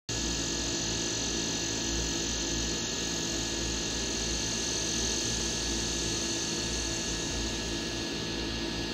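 A camera drone's electric motors and propellers whining steadily over a hiss, with a low hum underneath.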